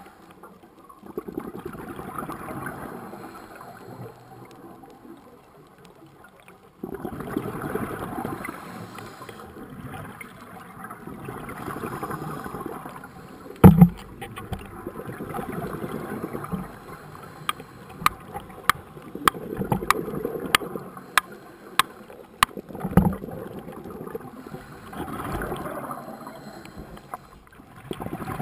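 Scuba diver breathing through a regulator underwater: bursts of exhaled bubbles rush and gurgle past every few seconds. There is a single loud knock about halfway through, and a run of sharp clicks a few seconds later.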